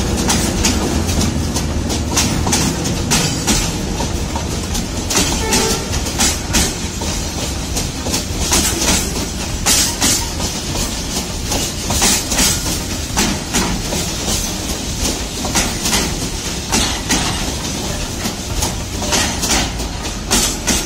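Toy train's wagons rolling past on the track: a steady running rumble with the wheels clicking irregularly over the rail joints.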